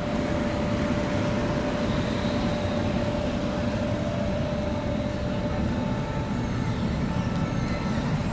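RBS Be 4/10 tram rolling toward the listener on a curve of street track: a steady rumble of wheels with a steady whine running over it.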